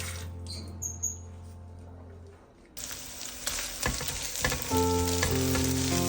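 Food sizzling in a frying pan, starting about halfway through as an even hiss with a couple of sharp pops. Background music fades out in the first half and comes back near the end over the sizzle.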